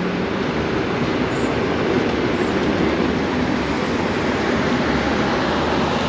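Freight train passing: the steady noise of its wagons rolling along the rails.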